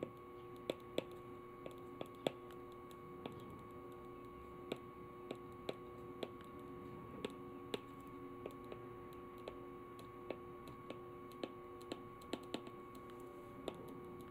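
Faint irregular clicks, about one or two a second, as a pen taps down stroke by stroke in handwriting, over a steady faint hum.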